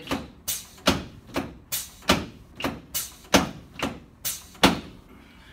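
A quick run of about a dozen sharp thumps, two or three a second, from rapid chiropractic thrusts on the shoulders, clavicles and front ribs of a patient lying on an adjusting table. They stop a little before the end.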